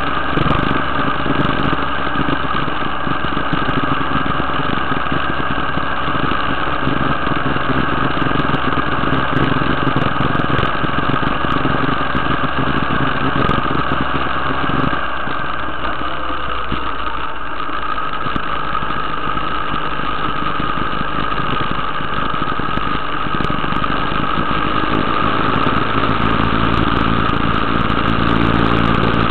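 Motorcycle engine running steadily while riding, heard from an onboard camera, with a steady rushing noise over it. The deep engine note fades about halfway through and comes back near the end.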